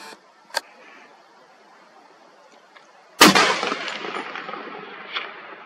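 A single rifle shot from a Browning BAR in .300 Winchester Magnum about three seconds in, followed by a long rolling echo that fades over a couple of seconds. A short sharp click comes about half a second in.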